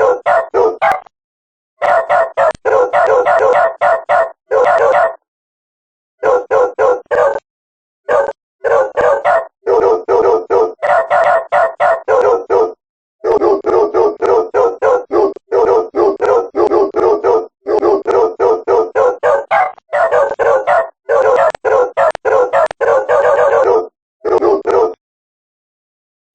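A dog yelping and howling frantically in rapid runs of short, pitched yelps, several a second, with the runs broken off abruptly by silent gaps.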